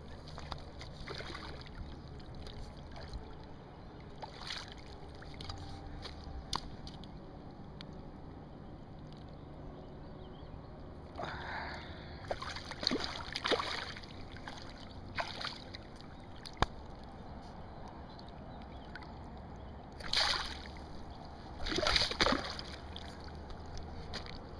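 Water splashing and sloshing in several short bursts, a hooked flathead catfish thrashing at the surface near the bank, over a steady low river and wind background.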